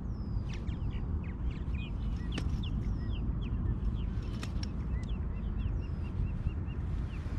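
Several birds chirping and calling in short sweeping notes, with a quick run of about six repeated notes near the end, over a steady low rumble.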